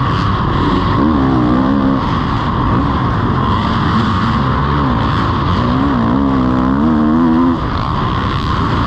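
Kawasaki KX450 single-cylinder four-stroke motocross engine, heard from the rider's helmet, revving up and down as the throttle is worked through the corners. The engine pitch wavers, and the sound dips briefly near the end as the throttle shuts off.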